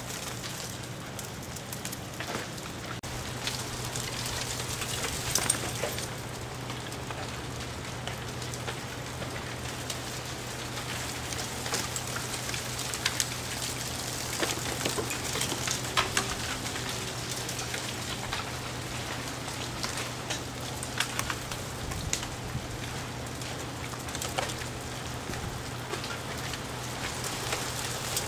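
Ice shedding from ice-coated trees in a thaw: a continuous patter of ice fragments falling through the branches and landing, like rain, with a few louder sharp clinks of bigger pieces scattered through it.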